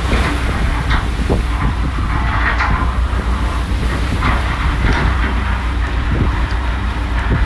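A purse seiner under way: its diesel engine runs with a steady low drone, over the rush of water churning along the hull. Irregular short knocks and rattles come from the deck gear.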